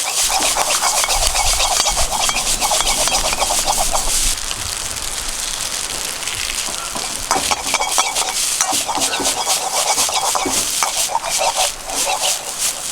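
Food sizzling in a wok over a campfire, with a spatula scraping and clicking against the wok as it is stirred.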